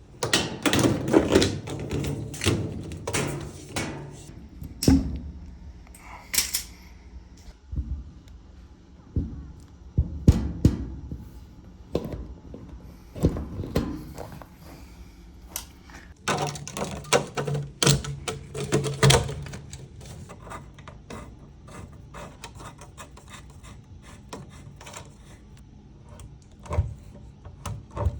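Repeated knocks, clunks and rattles of hands handling a top-load washing machine and its hoses during installation. They come thick in the first half and again about two-thirds through, then thin to light taps and ticks.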